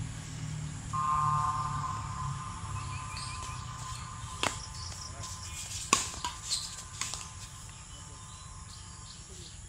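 Badminton rackets striking a shuttlecock in a rally: a run of sharp cracks about four and a half to seven seconds in, the loudest near six seconds. Before the hits, a steady tone is held for about two seconds, and steady insect chirring runs underneath.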